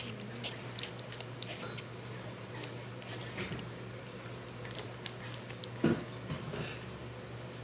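Irregular small plastic clicks and ticks as the jointed arms of a transformable fidget-spinner toy are bent and twisted by hand, with one duller knock about six seconds in, over a steady low hum.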